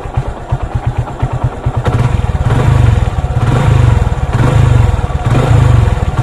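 Motorcycle engine running warm at idle with a rattle from its loose timing chain, a sign of a worn tensioner backing off. About two seconds in the engine gets louder, swelling and easing roughly once a second.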